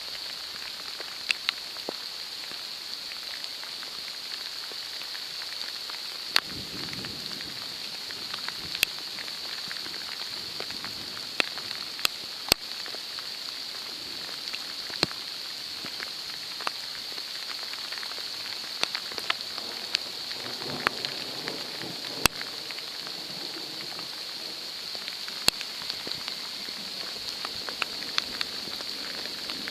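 Steady rain falling, with scattered sharp drops hitting close to the microphone. A faint low rumble of distant thunder comes about six seconds in and again around twenty seconds.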